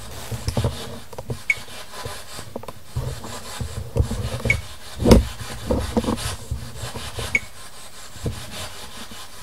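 Rubbing and scraping handling noise from a camera being moved, with a low rumble and scattered knocks, the strongest about five seconds in. A short high beep recurs about every three seconds.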